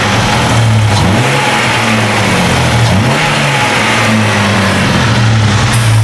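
Jeep Grand Cherokee 4.0L straight-six running smoothly with a steady hum, its pitch dipping briefly twice. It runs without misfiring now that a faulty crankshaft position sensor has been replaced.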